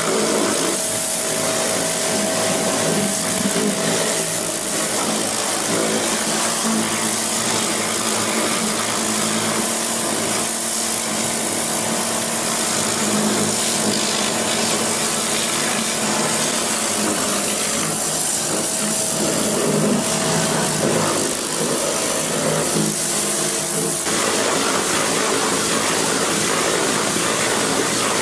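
High-pressure washer jet spraying caked mud off an excavator's steel tracks: a steady, loud hiss of water over a steady machine hum.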